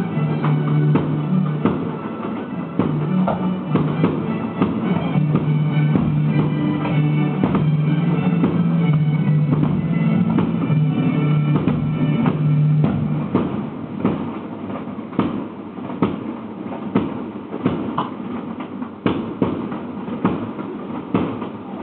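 Loud music with a drum beat and held bass notes. In the second half the held notes fade and sharp, evenly spaced hits stand out.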